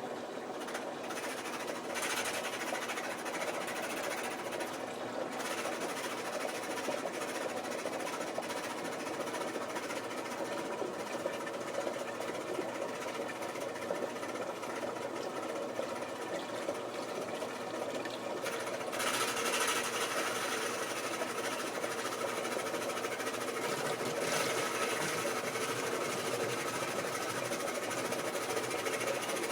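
Maytag Performa washing machine running with an abnormal mechanical noise whose cause is unknown to the owner: a steady machine noise that turns harsher about two seconds in and louder shortly before twenty seconds in.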